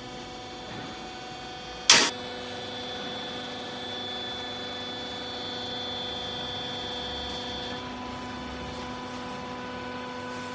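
Hydraulic clothes baler running: a steady machine hum with several held tones from its electric motor and hydraulic pump, broken by one sharp, loud clunk about two seconds in.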